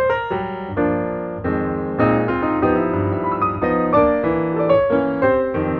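Background piano music: chords with a melody of single notes.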